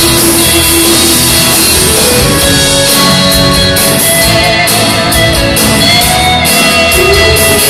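Live band music: a song played on acoustic and electric guitars with a full band, loud and steady.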